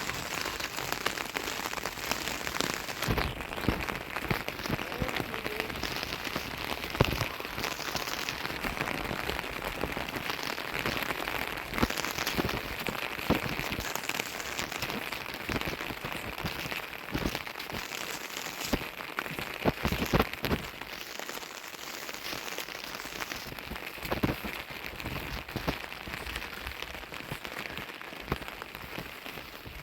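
Rain falling steadily on a surface, with scattered sharp taps of drops or knocks now and then.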